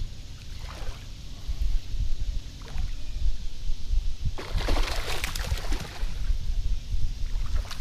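A hooked fish splashing at the surface as it is reeled to the boat, with a burst of splashing about halfway through, over a low, uneven rumble on the microphone.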